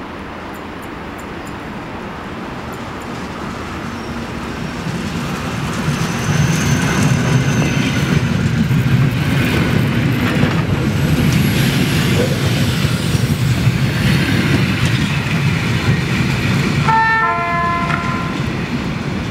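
EN57 electric multiple unit arriving and running past along the platform: a low rumble of wheels and motors that grows louder as it approaches and stays loud while the carriages go by, with a thin high squeal early in the pass. Near the end, a short descending run of tones sounds.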